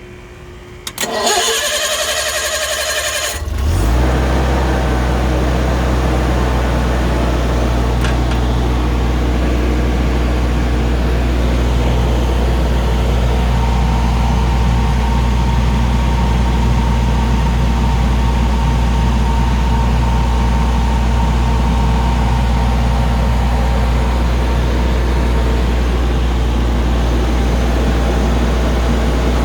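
The 4-cylinder Mitsubishi engine of a 2002 Generac 15 kW liquid-cooled standby generator is cranked by its starter for about two and a half seconds. It catches a little under four seconds in and then runs steadily at constant speed.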